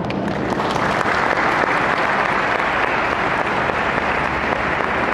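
Audience applauding, swelling in the first second and then holding steady.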